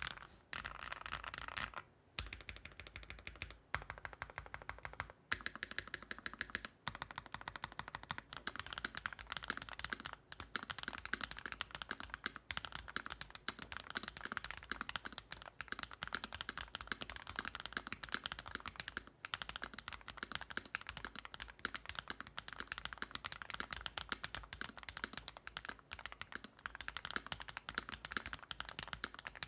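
Continuous fast typing on a mechanical keyboard fitted with Gateron x Swagkeys Deepping linear switches (factory-lubed, nylon housings, POM stems) on an aluminum plate: a dense run of keystroke clacks, broken by a few brief pauses in the first several seconds.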